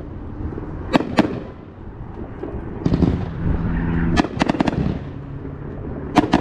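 Poison Fangs 500-gram cake from Top Gun Fireworks firing, its aerial shells bursting in sharp bangs. Two come about a second in, a group follows around three seconds, then a quick run of about four, and two more near the end.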